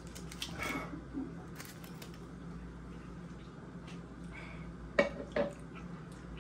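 Foil candy wrapper crinkling as a small chocolate is unwrapped in the first second or so, then quiet chewing. Two short sharp sounds about five seconds in.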